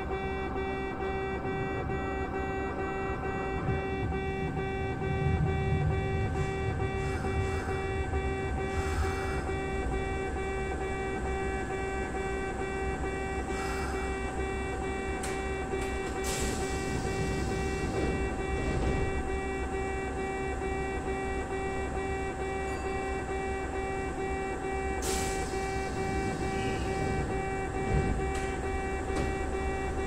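Japanese railway level-crossing warning alarm ringing on and on while the crossing barriers are lowered, a repeating two-pitch electronic bell tone.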